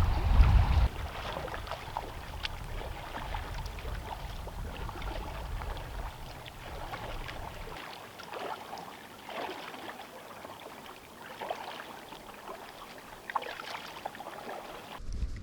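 Water splashing and lapping in short irregular strokes, with wind buffeting the microphone in the first second.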